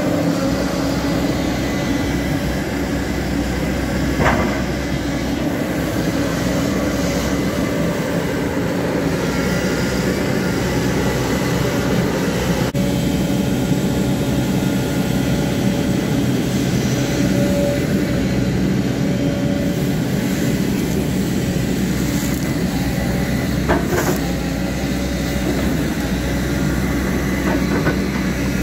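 JCB tracked hydraulic excavator's diesel engine running steadily while it digs a trench, with a few sharp knocks, about four seconds in and again near the end.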